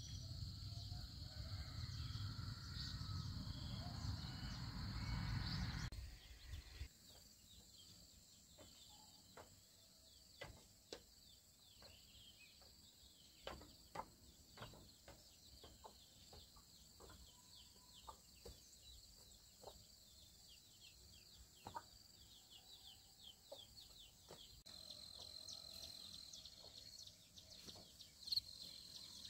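Rural outdoor ambience with no speech. A low rumble fills the first six seconds, then come many short, scattered clucks from chickens, with birds chirping. A steady high tone sets in for the last few seconds.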